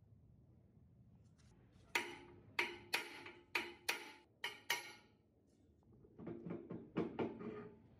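Metal struck hard seven times in about three seconds, each blow ringing briefly, then a quick clatter of lighter knocks near the end.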